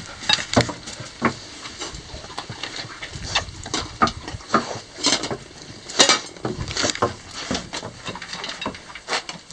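Dogs eating dry kibble from a metal bowl: irregular crunches and clinks, loudest about six seconds in.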